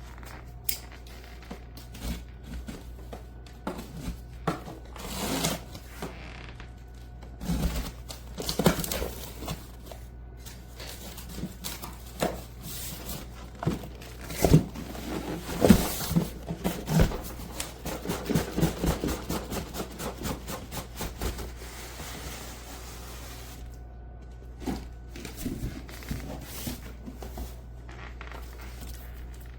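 Irregular knocks, clicks and scrapes of objects being handled, busiest in the middle and sparser near the end, over a steady low hum.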